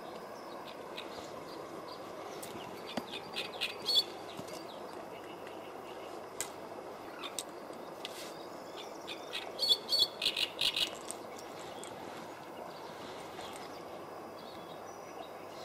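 A small bird chirping in two quick bursts of short, sharp notes, one about three to four seconds in and a louder one around ten seconds in, over a steady outdoor hiss.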